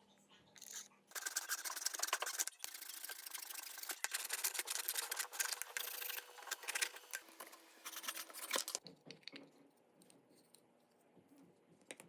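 Rough, irregular scraping and rubbing of a hand tool working metal. It starts about a second in and stops about nine seconds in.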